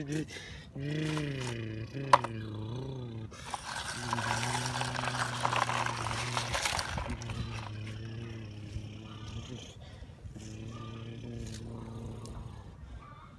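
A low voice humming and droning in long held tones, sliding in pitch at first and then holding level. A burst of rustling, scraping noise runs from about 3.5 to 7 seconds in, with a sharp click about 2 seconds in.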